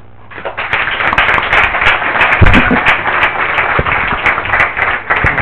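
An audience applauding: many people clapping, building up within the first second and then going on steadily.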